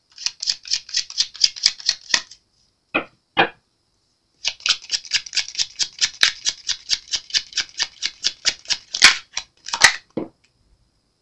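A deck of tarot cards shuffled by hand: a quick run of card clicks, about eight a second, for two seconds, then two single taps, then a longer run of about five seconds that ends in a few louder snaps of the cards.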